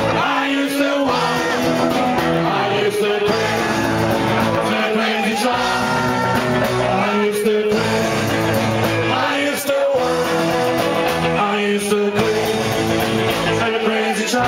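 Rock and roll band playing live, with electric guitar, drums and vocals, while the crowd sings along loudly.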